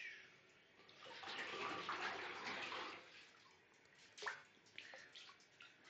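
Shallow bathwater in a tub swishing and splashing for a couple of seconds, then a single sharp click a little after four seconds in, followed by a few faint ticks.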